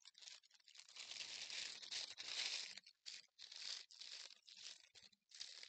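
Clear plastic piping bags crinkling and rustling as one icing-filled bag is worked down inside another. An irregular run of crackles, loudest in the middle.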